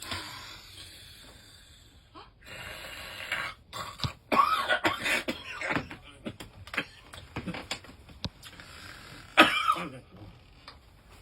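A person's loud, rough throat noises, coughing and rasping in a string of short bursts, loudest about four seconds in and again near nine seconds.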